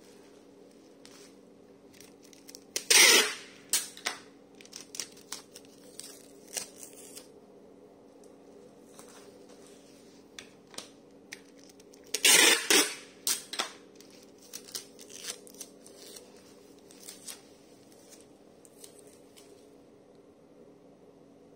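Packing materials being torn and handled: two loud ripping sounds about nine seconds apart, each followed by a run of small crackles and taps of plastic wrap. A faint steady hum runs underneath.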